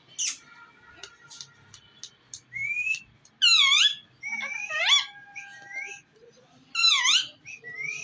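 Rose-ringed parakeet whistling and chirping: a rising whistle, then sharp calls that swoop down and back up in pitch, the loudest a little past three seconds in and again near seven seconds.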